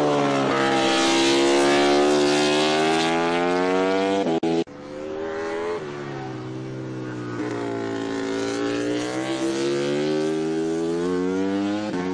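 MotoGP racing motorcycle engine running at high revs, its pitch rising and falling. The sound breaks off abruptly about four and a half seconds in, then picks up again.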